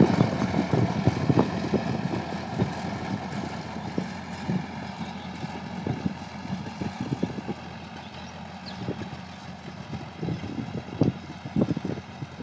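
Tractor diesel engine running under load while it pulls a rotary tiller through dry soil, with irregular knocks throughout. The sound grows fainter as the tractor moves away.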